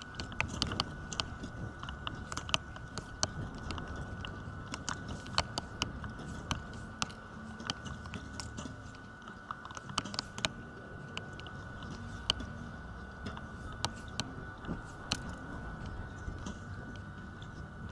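Wind buffeting the microphone at an outdoor archery shooting line, with scattered sharp clicks and snaps at irregular intervals and a faint steady high tone.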